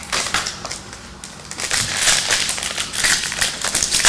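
Crinkly foil wrapper of a trading-card pack being crumpled and handled, a dense crackling that picks up and gets louder a little after a second in.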